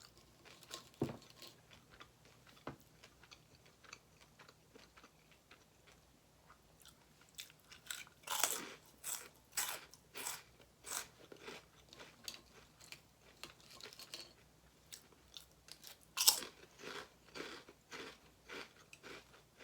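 Close-miked chewing of crunchy food: a few soft bites in the first seconds, then from about eight seconds in a run of crisp, loud crunches, with a second loud bite near sixteen seconds.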